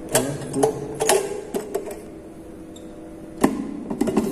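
Plastic cook/warm lever of a rice cooker being worked by hand: a series of clicks and knocks, with the sharpest click about three and a half seconds in as the lever latches down into cook mode. A faint steady hum sits underneath until about then.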